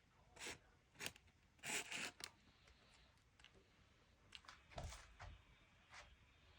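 Faint scattered handling sounds: short rustles and light clicks, the loudest cluster about two seconds in, with a dull low knock near the five-second mark.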